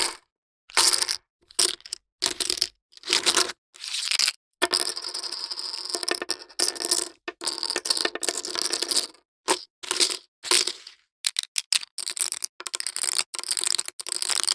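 Plastic poker chips clicking and clattering against one another in a series of short separate takes with silence between them. About five seconds in there is a longer run of rattling, and the bursts come shorter and faster near the end.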